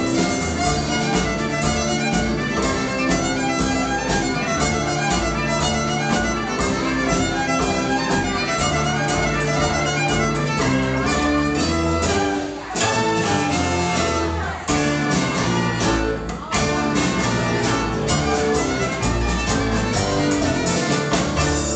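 Live band playing an instrumental passage led by fiddle, over acoustic guitar, upright bass and drums. The music breaks off briefly three times about halfway through, then carries on.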